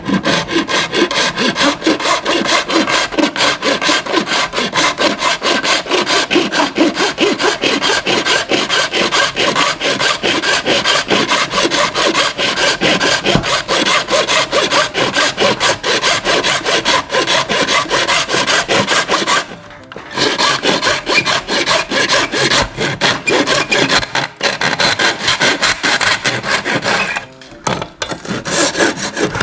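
Hand tool scraping in quick back-and-forth strokes, shaving material off a battery conversion adapter so it will seat further into the tool. The stroking breaks off briefly twice, about two-thirds of the way through and near the end.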